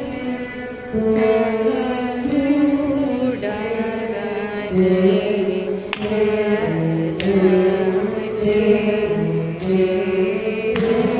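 Several veenas played together in a Carnatic piece, plucked notes sliding and bending between pitches, with a few sharp plucks standing out.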